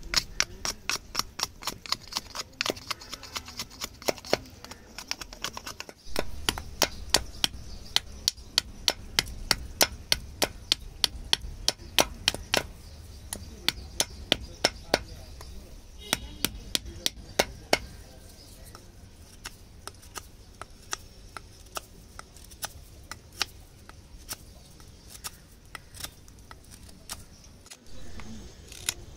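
A large knife blade chopping into a dry Lapsi (Choerospondias axillaris) wood spoon blank held against a log stump: a long run of sharp, woody knocks, about two or three a second, growing sparser in the second half.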